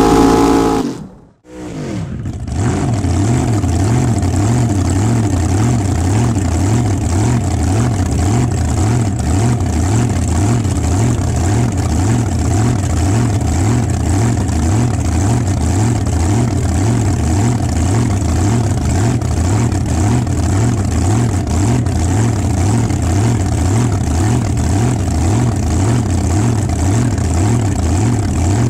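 Two-seat dragster's engine at high revs at the end of a burnout, cut off abruptly about a second in; then the engine idling with an even, rhythmic lope.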